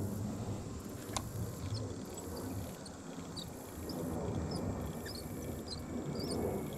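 Outdoor ambience: a steady low rumble with many short, high chirps scattered through it from about two seconds in, and a single click about a second in.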